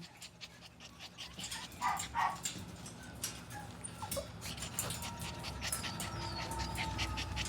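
Young puppies whimpering and squeaking, with two short squeaks about two seconds in, over light clicking and rustling from their movement.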